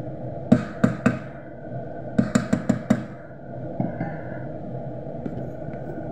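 Wooden spoon knocking against the rim of a coated cooking pot: three knocks about half a second in, then a quick run of five knocks a little past the middle, over a steady background hum and hiss.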